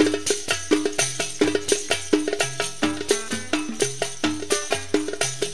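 Oud playing a fast instrumental passage of Sanaani tarab music: quick, evenly repeated plucked notes over a low bass line, with light percussion keeping the beat.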